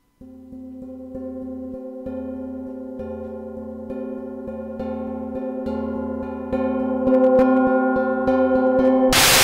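Nepalese handcrafted gong tapped softly and repeatedly, about three strikes a second, its humming tones building steadily louder. About nine seconds in, a harder strike sets it into a loud, full crash.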